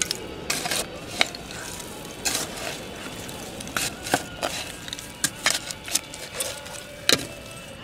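Hands scraping and pulling through loose dump soil, with irregular sharp clinks of broken glass and pottery knocking together.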